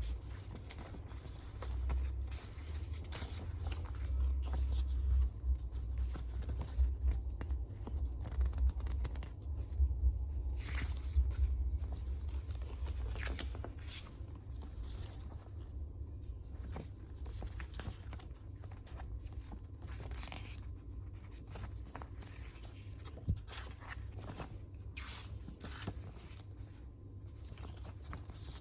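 Stationery packaging being handled: paper and plastic rustling and tearing in irregular scratchy bursts, over a low steady rumble.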